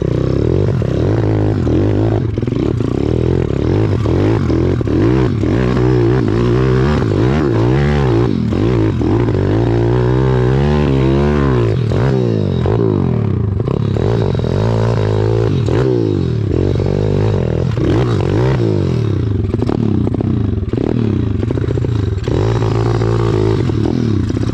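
Pit bike's small single-cylinder four-stroke engine revving under load while climbing a steep hill, its pitch rising and falling again and again as the throttle is worked.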